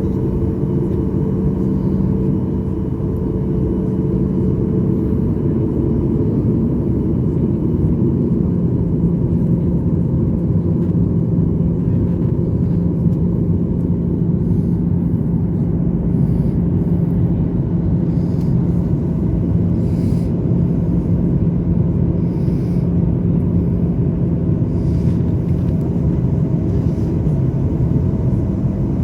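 Airliner cabin noise: the steady, loud low rumble of jet engines and airflow heard from a passenger seat, with an engine hum that shifts slightly about seven seconds in.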